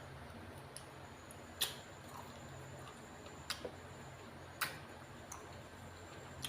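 A handful of short, sharp clicks, about five spread unevenly over six seconds, the loudest about one and a half seconds in, over a faint steady low hum.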